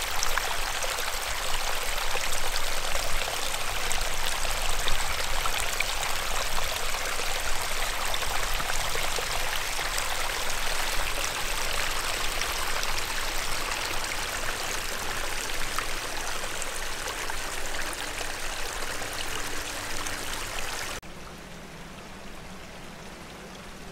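Spring water running in a steady stream. About three seconds before the end it cuts off abruptly to a much quieter background.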